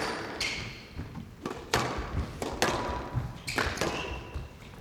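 Squash rally: the ball is struck by rackets and thuds off the court walls about once a second, with brief shoe squeaks on the court floor between the shots.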